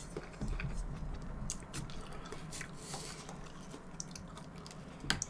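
Close-miked mouth sounds of a person biting into and chewing a whole kumquat, peel and all: faint, scattered wet clicks and squelches, with one sharper click near the end.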